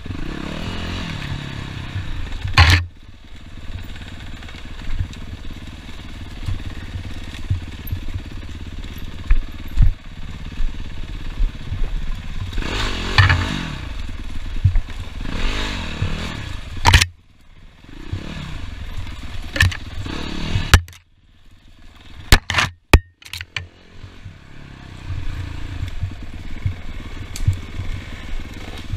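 Dirt bike engine running down a rough trail, revving up and down, with sharp knocks and clatter from the bike over the ground. A little past the middle the engine sound drops almost away for a few seconds, broken by several loud knocks.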